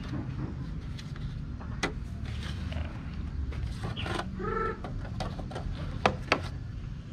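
Hard plastic clicks and knocks as a clear plastic dome lid is fitted onto a black plastic seedling tray, ending in two sharp clicks as it is pressed down. A short pitched sound about four seconds in, over a steady low background rumble.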